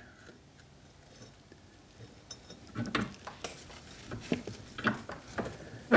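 Small metal clicks and clinks from a bench vise being tightened by hand, gently pressing a part onto the chute blocker's shaft. Nearly quiet at first, then irregular clicks start about three seconds in.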